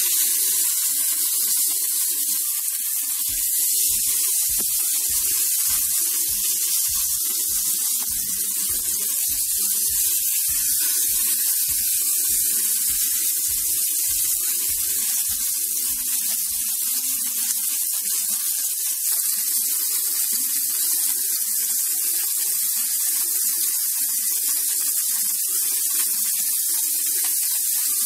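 Marinated beef steak slices frying in hot oil in a nonstick pan, a loud, steady sizzle.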